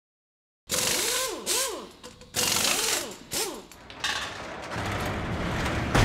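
Intro sound effects: after a moment of silence, loud mechanical-sounding noise bursts come in two groups, each with short whining tones that swoop up and back down, then a low rumble swells and ends in a hit near the end.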